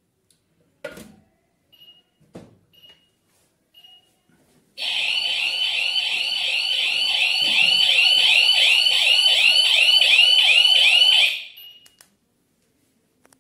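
Siren of a YISEELE wireless home alarm kit sounding in a fast, repeating warble for about six seconds, then cutting off. It is preceded by a couple of clicks and three short high beeps.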